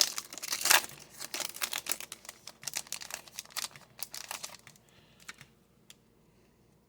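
Trading card pack wrapper being torn open and crinkled: a dense plastic crackle that thins out after about four and a half seconds, leaving a few faint clicks before it goes quiet.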